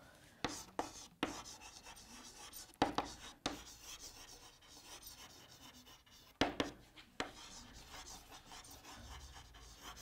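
Chalk writing on a chalkboard: faint scratching strokes, broken by several sharp taps as the chalk meets the board.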